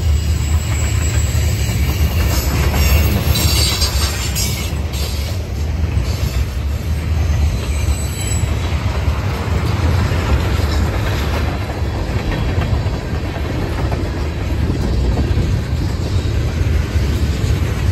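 Freight train of tank cars and covered hoppers rolling past: a steady low rumble of steel wheels on rail, with a run of clicks over the rail joints a few seconds in and a faint high wheel squeal now and then.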